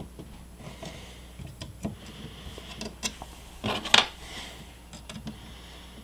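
Small clicks and taps of needle-nose pliers bending the metal lid-switch contact tab inside a Braun coffee grinder's plastic base, with a sharper click about four seconds in.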